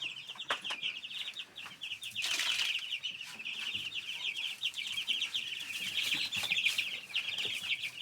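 A brooder full of baby chicks peeping continuously in a dense chorus of high, rapid chirps, with a brief rustling burst about two seconds in.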